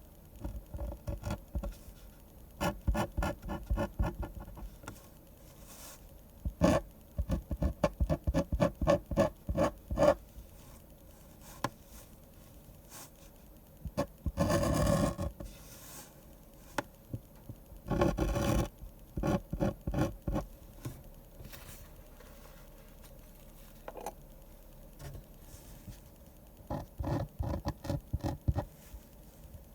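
Pen drawing on paper in clusters of quick short strokes, like hatching and line work, with two longer continuous scratches about midway.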